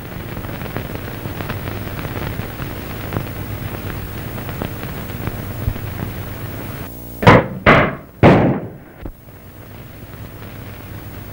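Film sound effect of a radio-control apparatus switching on: a steady crackling hiss, then three loud crackling electrical bursts in quick succession about seven seconds in, as the remote-control signal takes over the ship.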